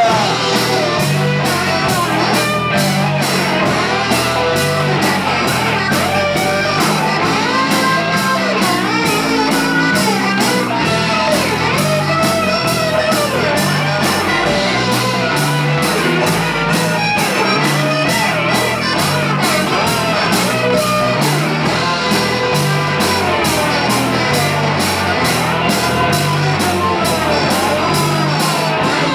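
Rock music: an instrumental passage led by guitar over bass and a steady drum beat.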